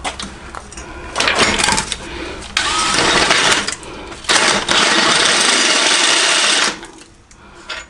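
Electric drill run in three bursts, the last about two seconds long and steady, as a step bit cuts bolt holes through a steel bracket.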